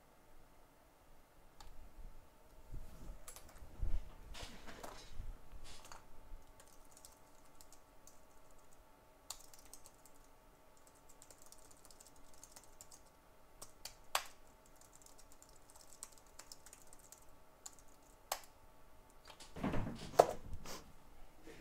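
Scattered light clicks and taps of small tools being handled on a workbench, with a knock about four seconds in and a louder clatter near the end, over a faint steady hum.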